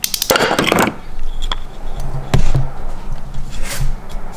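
A serpentine-belt idler pulley spun by hand gives a rapid rattling whir for under a second, then several sharp knocks as parts are handled. The rattle comes from a worn pulley bearing that the owner calls pretty bad.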